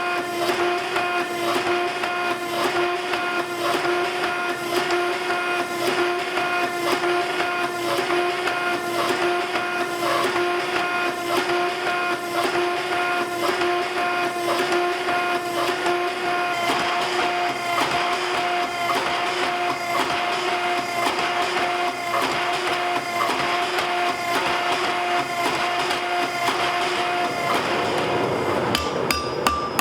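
A motor-driven shop machine running steadily, a constant hum over noise with a regular light ticking. The hum stops a couple of seconds before the end.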